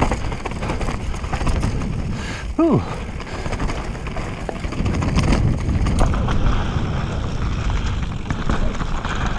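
Mountain bike descending a loose dirt trail at speed: wind buffets the camera microphone while the tyres crunch over loose dirt and fallen leaves, with constant rattles and knocks from the bike over the bumps.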